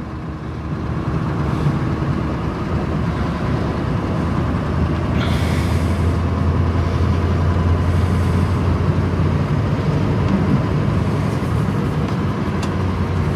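Scania plow truck's diesel engine running steadily, heard from inside the cab, growing louder over the first few seconds. A short hiss comes about five seconds in.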